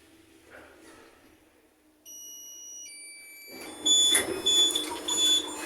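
Lift car's electronic signal: a steady two-note tone stepping down in pitch about two seconds in, then three loud short high beeps about half a second apart over a rising rumble of the car.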